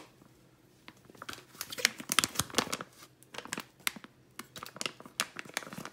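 Plastic bag of batter mix crinkling and crackling as it is handled, in quick irregular bursts that start about a second in.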